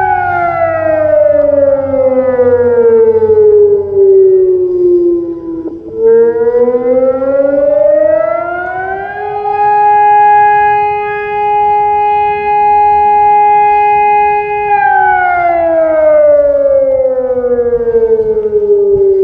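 MARS-ARSENAL AS-600 electronic civil-defence siren with a BAO-600 acoustic unit, wailing loudly through its horn loudspeakers during a routine test of the warning system. The pitch falls over about six seconds, rises over about three, holds steady for about five, then falls again near the end.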